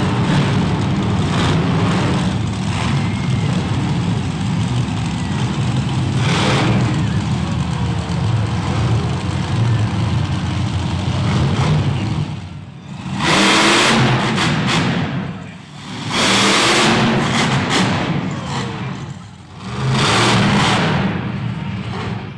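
Monster truck engine running loud and revving. In the second half it comes in three surges, each a couple of seconds long, with the level dropping between them as the throttle comes on and off.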